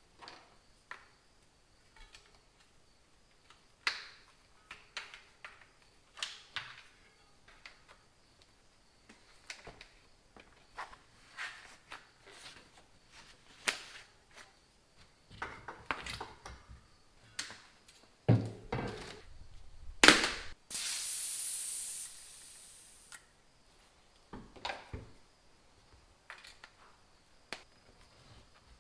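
Tools and bicycle parts being handled during reassembly: scattered clicks, taps and clunks. A sharp knock comes about twenty seconds in, followed by a steady hiss lasting about two seconds.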